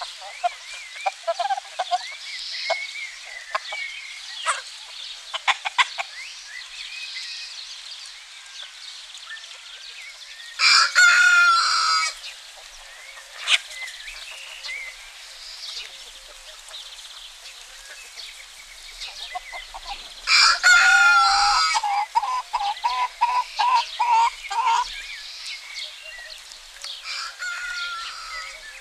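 Domestic rooster crowing twice, about ten and twenty seconds in, each crow about a second and a half long, with hens clucking around it: scattered short clucks early on and a quick run of clucks right after the second crow.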